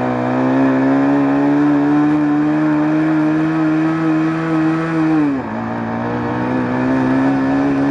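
Bajaj Pulsar 150's single-cylinder engine pulling hard under acceleration, heard from the rider's seat, its note climbing slowly and then holding high. About five seconds in the revs drop sharply at an upshift, then start climbing again.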